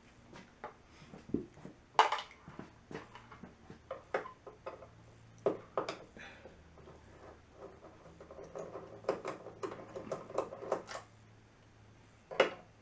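Irregular clicks, taps and knocks of a screwdriver on the plastic casing of a flat-screen TV being taken apart, with a sharper knock about two seconds in and a quicker run of clicks late on.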